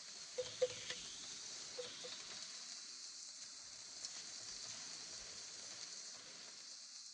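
Beef mince and onions sizzling faintly in a frying pan over a gas hob, with a steady hiss. A few light clicks of a wooden spatula against the pan come in the first two seconds as it is stirred.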